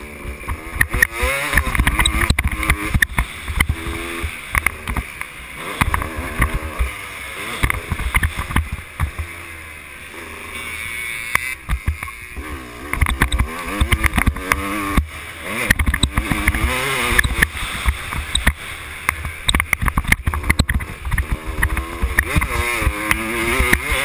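Dirt bike engine revving up and dropping back again and again as it is ridden round a dirt track, with heavy wind buffeting on the microphone and short knocks throughout.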